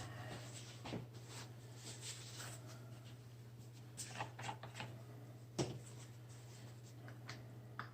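Faint handling noises: scattered small clicks, taps and rubs as the parts of an opened vacuum powerhead are handled, over a steady low hum.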